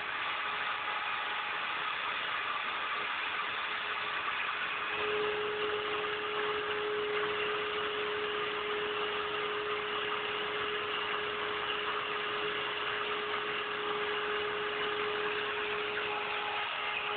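CNC router carving a 3D relief into MDF: the spindle motor runs steadily with a constant cutting noise. A steady hum tone joins about five seconds in and holds.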